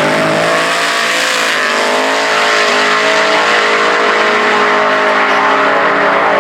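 ProCharger-supercharged V8 of a drag-racing Chevy Nova at full throttle on a pass. Its pitch climbs steeply at the start, then holds high and fairly steady, with a slight dip and recovery about one and a half seconds in.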